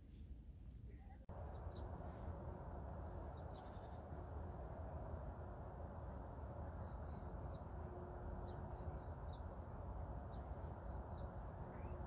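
Outdoor winter-morning ambience: small birds chirping in short, scattered calls over a steady low background rumble, starting about a second in after a quieter moment.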